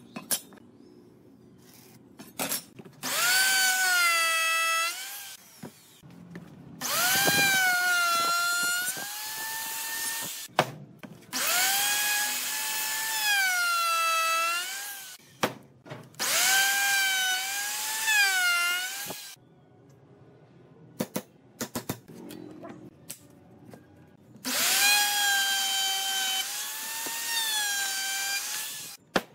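Small electric power tool running in five bursts of a few seconds each. Each burst is a high whine that spins up, then dips and wavers as the tool works into wood. Small clicks fall in the pauses between bursts.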